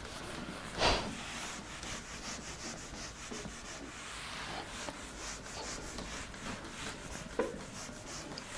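Handheld whiteboard eraser rubbing across a whiteboard in quick back-and-forth strokes, wiping off marker writing, with a brief louder sound about a second in.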